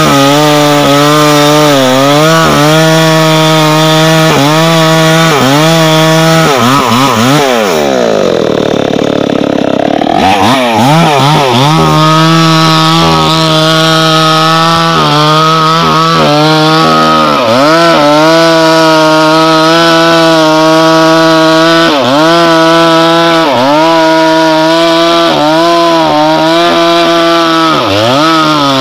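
Small two-stroke petrol chainsaw at full throttle cutting into a tree trunk, its pitch dipping again and again as the chain bogs in the cut. About a quarter of the way in the engine drops to a low idle for a couple of seconds, then revs back up and cuts on.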